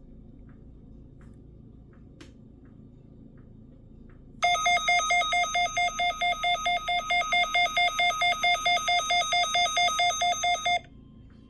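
NOAA weather radio receiver's electronic alert alarm beeping rapidly, about five shrill beeps a second. It starts a few seconds in, lasts about six seconds and cuts off abruptly. It sounds as the weekly test signal activates the receiver.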